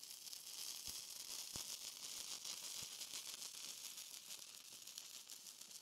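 Stick welding with a 1/8-inch 6010 rod at 90 amps on rusty, unprepped 1/4-inch steel plate. The arc crackles steadily, with a few sharper pops in the first three seconds. The welder found this run threw excessive spatter.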